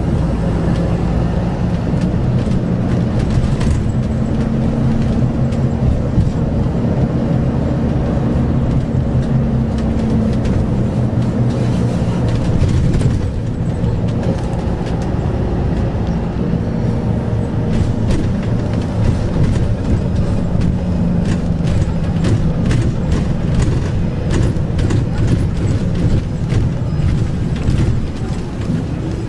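Interior of a Yutong ZK6118HGE city bus under way at speed: a steady engine drone and road noise, with small clicks and rattles from the cabin, more of them in the second half.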